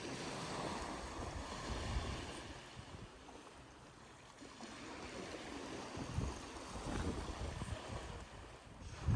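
Sea waves washing on the shore, swelling and easing, with wind gusting on the microphone.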